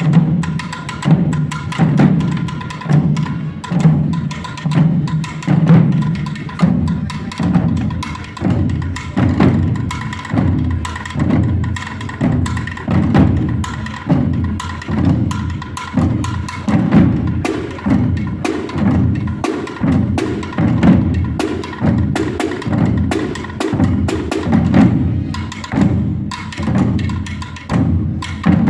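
Drum corps of a Holy Week procession playing a steady, slow march, with many drum strokes and a heavy accent about once a second.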